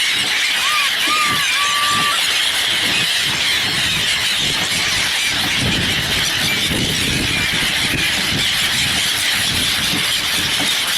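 A large flock of birds calling all at once, a dense, shrill, steady chatter, with a few louder, longer single calls standing out in the first two seconds.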